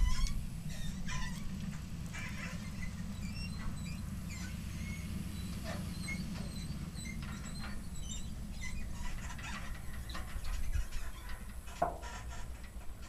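Birds chirping and calling over a steady low rumble. The rumble fits a diesel pickup pulling a trailer away into the distance.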